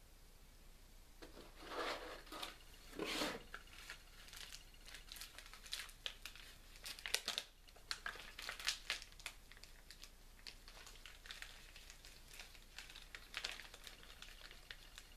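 A cardboard box being handled and shut, two dull rustling bursts early, followed by crisp crinkling and crackling of paper as a folded owner's manual is handled with latex-gloved hands.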